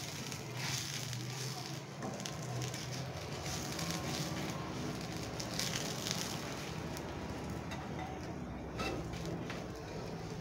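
Oil sizzling and crackling under a wheat parotta frying on a hot dosa tawa, with a spatula pressing and scraping it now and then. The sizzle swells briefly about a second in and again around six seconds.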